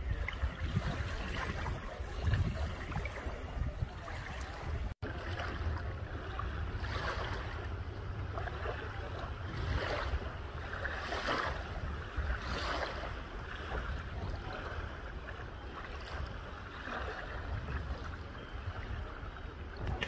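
Small bay waves lapping and washing over a sandy, pebbly shore in soft hissing surges, with steady wind rumble on the microphone. The sound cuts out for an instant about five seconds in.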